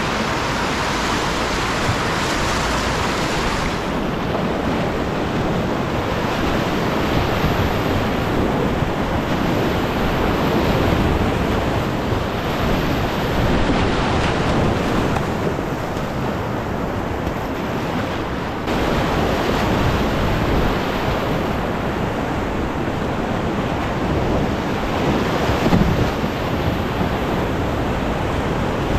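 Whitewater river rapids rushing steadily around the canoe, with wind buffeting the microphone.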